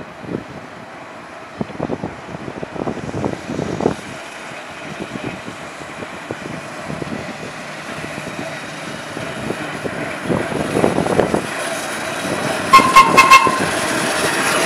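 Vintage subway train approaching along the elevated track, its running noise growing steadily louder, then a quick burst of short horn toots near the end.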